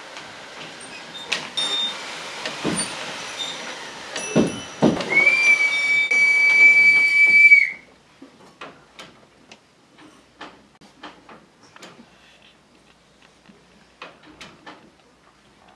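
Stage sound effects: a rattling, scraping din with a few heavy thumps. A steady high whistle joins it about five seconds in and is held for about two and a half seconds. Then the din cuts off abruptly, leaving sparse quiet clicks and ticks.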